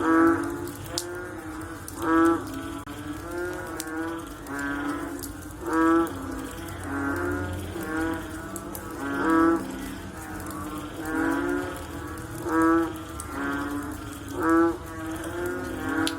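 A chorus of frogs calling after rain: many overlapping short, pitched calls, each under a second long, with a louder call standing out every two seconds or so.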